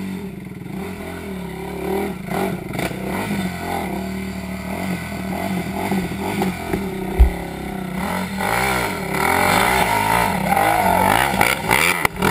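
Off-road engines revving up and down on a rough hill climb. There is one sharp thump about seven seconds in, then louder revving from about eight seconds.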